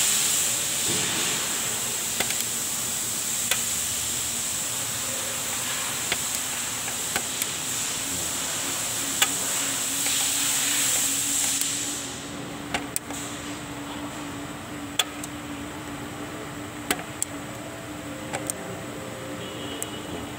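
Scattered sharp clicks of a thin tool working the teeth of a Toyota Hiace rear drum brake's star-wheel adjuster through the backing-plate slot, over a steady hiss that drops off about two-thirds of the way through.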